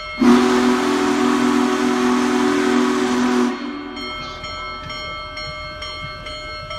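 Union Pacific diesel locomotive's air horn sounding one long chord of about three seconds. A railroad crossing bell rings steadily, about two strokes a second, before and after the blast.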